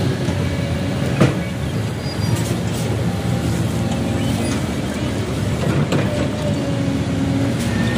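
Diesel engines of excavators and dump trucks running together, with one sharp knock about a second in.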